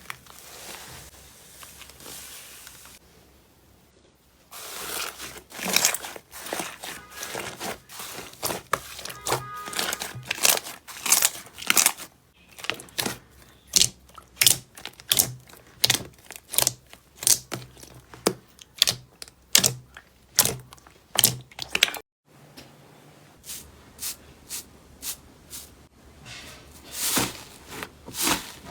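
Slime being squeezed, poked and stretched by hand, giving runs of sharp crackling pops, several a second. It stays quiet for the first few seconds and breaks off briefly a little past the middle.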